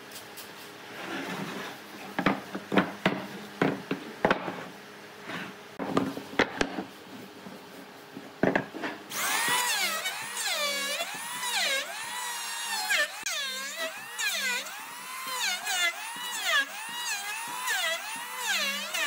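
Sharp knocks and clacks of wood for the first half. Then a power tool starts about halfway and runs with a whine whose pitch rises and falls over and over, a little more than once a second.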